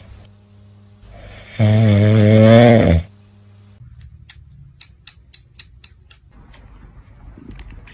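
Sleeping dog snoring: one long, loud, wavering snore about one and a half seconds in. After that come a few seconds of faint, sharp clicks.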